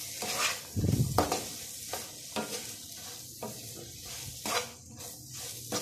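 Wooden spatula scraping and knocking against a non-stick frying pan as chopped green chillies, mango and garlic are stirred while they sizzle in hot oil, mixing in the cumin and salt. There is a steady frying hiss under irregular scrape strokes, and a louder dull knock about a second in.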